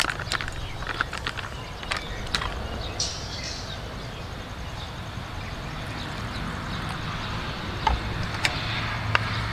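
Plastic flour packet crackling as the last flour is shaken out into a plastic bowl, then liquid poured onto the flour with a rising hiss from about six seconds in.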